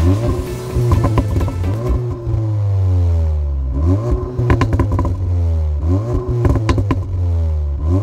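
CUPRA Ateca's 2.0-litre turbocharged four-cylinder petrol engine being revved in repeated blips. The revs climb quickly and sink back more slowly, about three times, with sharp cracks near the peaks.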